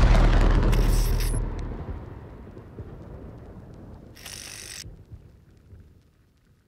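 The hip hop soundtrack ending: the music dies away over the first couple of seconds into a low rumbling tail. A short burst of hiss comes about four seconds in, and then the sound fades out.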